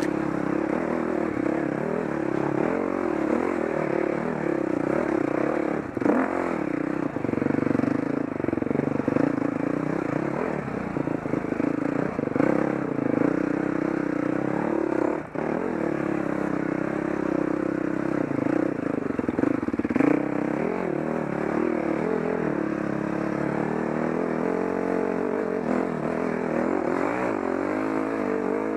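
A motor vehicle's engine running with its revs rising and falling, with occasional knocks and rattles.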